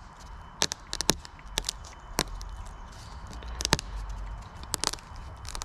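Brittle, cracked Box Chevy dashboard pad being snapped and picked apart by hand: a run of sharp, irregular snaps and clicks as old vinyl and foam pieces break off.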